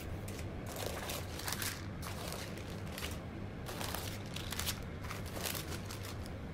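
Tissue paper rustling and crinkling as it is unfolded by hand, in several uneven swishes, over a low steady hum.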